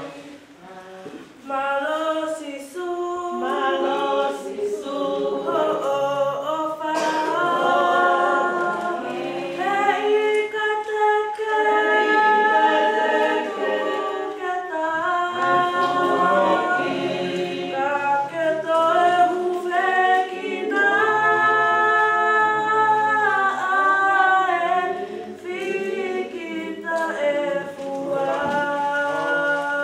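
A choir singing, several voices together holding long notes in phrases, coming in strongly about a second and a half in.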